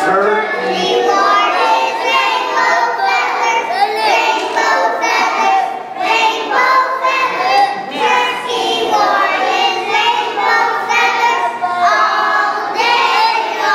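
A group of young children singing a song together in unison, with adult voices singing along.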